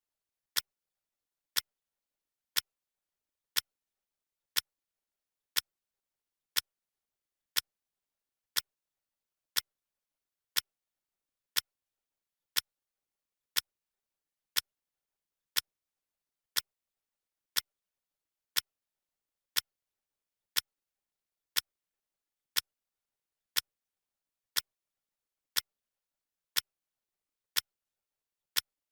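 Clock ticking sound effect: one sharp tick each second, with dead silence between the ticks.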